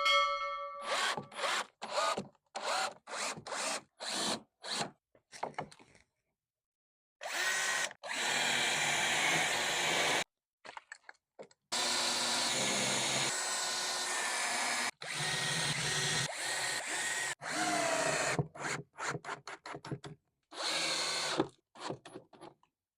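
Power drill driving screws to fasten casters onto a wooden base: a run of short trigger bursts, then several longer runs of a few seconds each.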